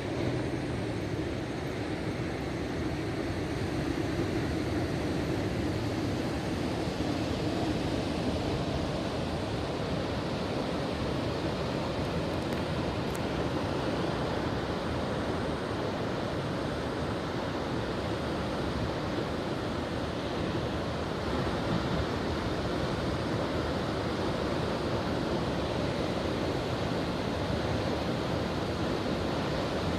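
Ocean surf and wind blowing across the microphone, a steady noise without breaks.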